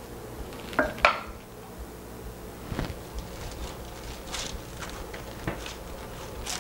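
A wooden spoon knocking and scraping against a metal saucepan as cooked playdough is scraped out, with two sharp knocks about a second in and another near the three-second mark. Near the end, soft rustling of wax paper as hands press the dough.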